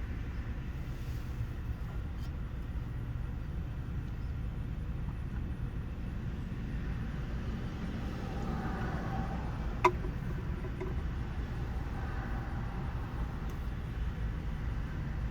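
Steady low rumble of a vehicle heard from inside it, with one sharp click about ten seconds in.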